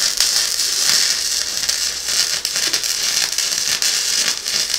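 MIG welder arc running, a dense steady crackle, cutting off abruptly near the end.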